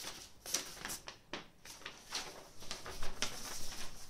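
Paper rustling and crinkling as a folded letter is opened and handled, in short, irregular swishes.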